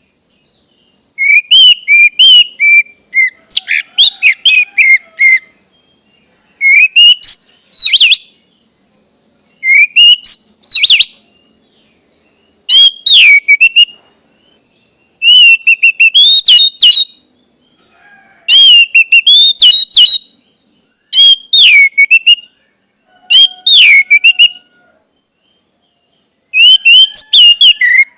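Orange-headed thrush singing loud, rapid phrases of sweeping whistled notes in bursts of a second or two, with short pauses between them. A steady high hiss sits under the song and fades out about two-thirds of the way through.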